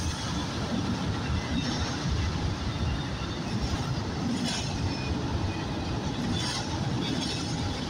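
Freight train rolling past, with a steady rumble of wheels on the rails and a few brief clicks in the second half.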